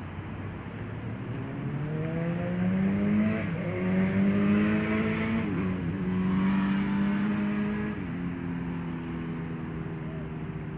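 A motor vehicle's engine accelerating through the gears: its pitch climbs and then drops at each shift, three times, getting louder towards the middle, then settles into a steady, lower note.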